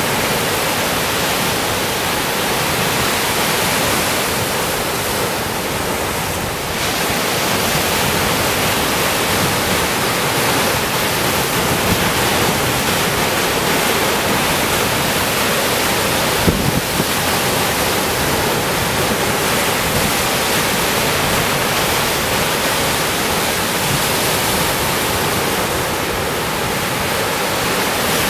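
Surf washing over a rocky shore: a steady, even rushing hiss with no distinct wave breaks standing out.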